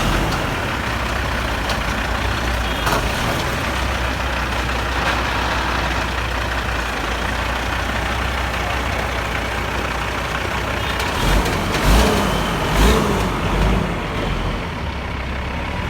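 Heavy diesel engine running steadily with a deep low rumble, surging louder a few times near the end.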